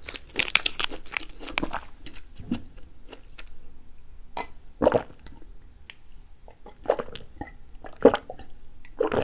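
Close-miked crunchy chewing of a raw vegetable stick for the first couple of seconds. Then drinking from a glass, with a few separate loud swallows about five, seven and eight seconds in.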